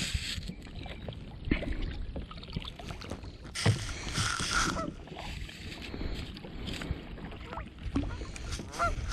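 Geese honking, a few calls about four seconds in and again near the end, over the splashes and knocks of kayak paddle strokes in the water.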